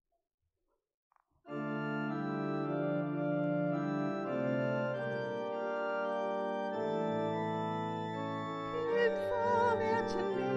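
Church organ playing sustained chords, starting about a second and a half in. Near the end a woman's voice begins singing with vibrato over the organ.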